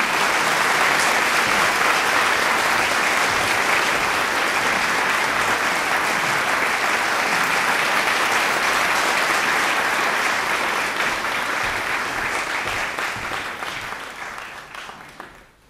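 Large audience applauding steadily, then dying away over the last couple of seconds.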